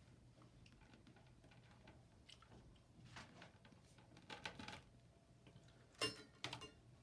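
Faint handling noise of small plumbing fittings: soft scattered clicks and taps, with two sharper clicks about six seconds in, over a low steady room hum.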